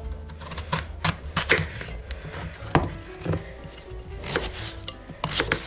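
Kitchen knife slicing a peeled courgette (zucchini) on a wooden cutting board: a string of uneven knocks as the blade goes through and meets the board.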